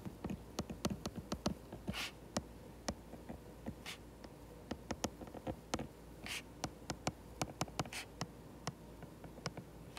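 Stylus tapping and sliding on an iPad's glass screen during handwriting: an irregular run of light clicks with a few short scratchy strokes.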